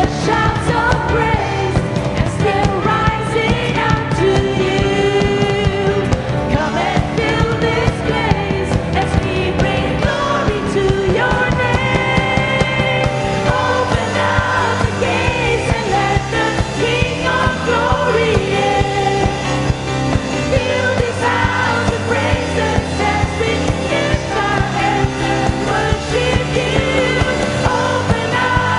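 Live worship band playing an upbeat praise song, with singing over a steady drum and bass beat.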